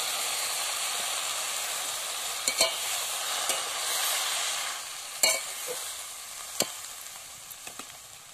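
Greens, potato and fish curry sizzling in a metal kadai just after mustard paste is added. A metal spatula stirs and scrapes the pan, knocking against it sharply a few times, loudest about five seconds in. The sizzle dies down over the last few seconds.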